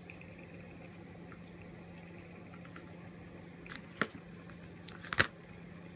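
A few short, sharp clicks from handling a crochet hook and yarn, the loudest about four and five seconds in, over a faint steady hum.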